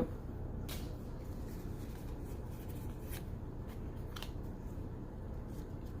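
Pokémon trading cards being handled and sorted by hand: a few soft, short clicks and rustles over a steady low hum.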